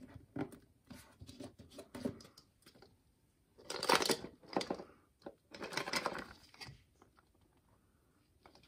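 Handling of a clear plastic craft bauble being pressed shut and turned over in the hands: a few small clicks and taps, then two rustling scrapes of plastic against hands, about four and six seconds in.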